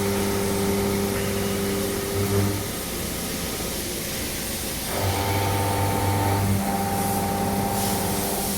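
WIA VX380 CNC vertical machining centre running its cutting cycle: a steady machine hum of several tones that drops out about two and a half seconds in and comes back about two seconds later with a higher tone added.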